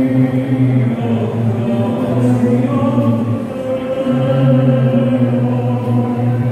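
Choir singing slowly, with long held notes.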